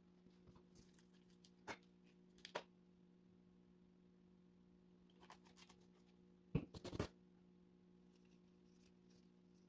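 Near silence with a few light clicks and knocks of hands handling an oil cup, an oil bottle and an aluminium engine block, the loudest cluster about two-thirds of the way through, over a faint steady hum.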